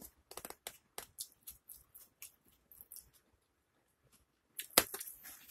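Cardboard food box being handled close to the microphone: a run of small, quick clicks and taps, then a sharp knock near the end, as if the box is knocked or set down, followed by a brief rustle.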